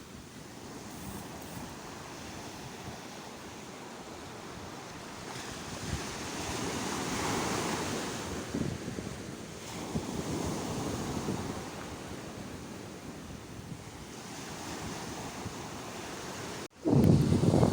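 Sea waves washing on the shore, a steady rush that swells twice as waves break, with wind on the microphone. Near the end the sound cuts out for a moment and comes back much louder.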